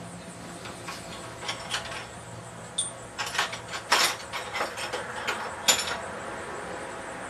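Metal leather stamps and tools being handled on a bench: a run of irregular clinks and knocks, busiest from about three to six seconds in.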